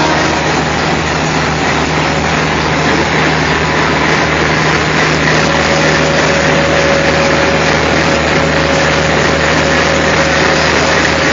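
G-scale LGB model diesel locomotive running on the layout, its onboard sound giving a steady diesel engine drone over the rolling noise of the train. A faint steady whine joins about halfway through.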